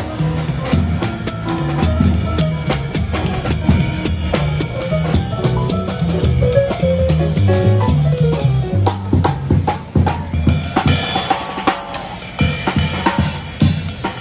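Small jazz combo playing live: a drum kit played with sticks, a plucked upright double bass moving from note to note, and a Yamaha digital piano.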